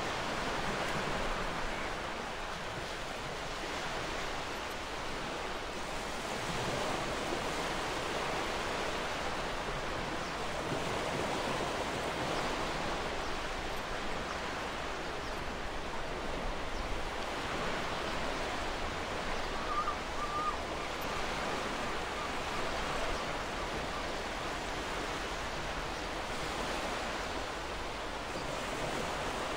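Ocean surf washing in: a steady hiss of waves that swells and eases every few seconds.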